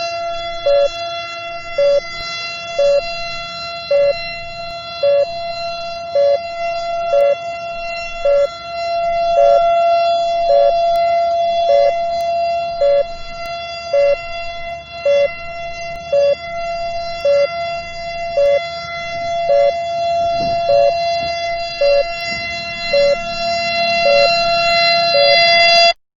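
Attack-warning siren holding one steady pitch, with a short lower beep repeating about once a second; it cuts off suddenly at the end.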